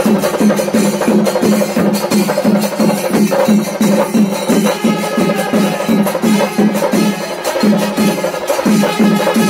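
Festival percussion: drums beaten in a steady, even rhythm of about three to four strokes a second.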